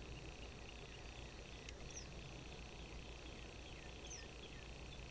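Faint outdoor ambience: a steady high insect drone, with a few short bird chirps, two of them about two seconds apart.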